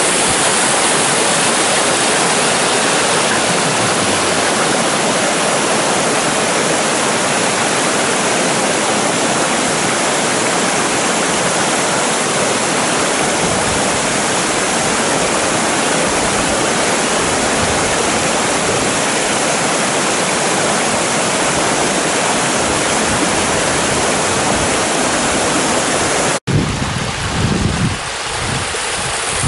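Floodwater from heavy rain rushing down a normally dry rambla, cascading over rocks and a small stone weir in a steady, even rush. Near the end the sound cuts suddenly to a shallower flow of runoff over open ground, with wind buffeting the microphone in low gusts.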